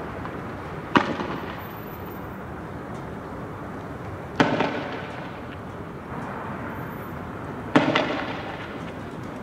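Three sharp explosive bangs about three and a half seconds apart, each with a short echoing tail, over steady street background noise.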